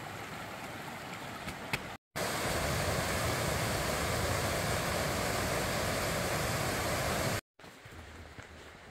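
Mountain creek rushing over rocks, a steady noise of flowing water. It cuts off abruptly twice, and between the cuts, from about two to seven seconds in, the rush is much louder and fuller.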